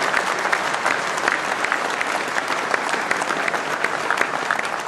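Large audience applauding, many overlapping hand claps at a steady level.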